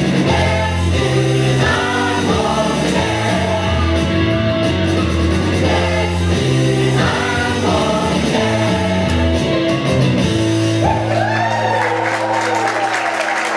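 Group of voices singing a song with band accompaniment, ending on a long held note about eleven seconds in as audience applause and cheering start.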